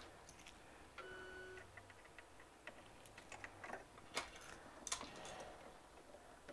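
Faint clicks and taps of a sewing machine being switched over for quilting, with one short electronic beep about a second in.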